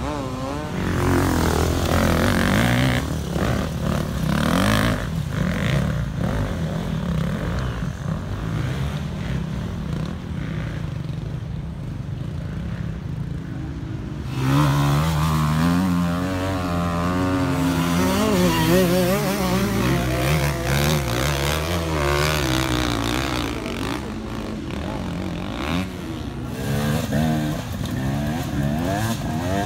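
Off-road enduro motorcycle engines revving under load as riders climb a steep, rooty dirt slope, the pitch rising and falling with the throttle. About halfway a louder, nearer bike takes over, its revs wavering rapidly.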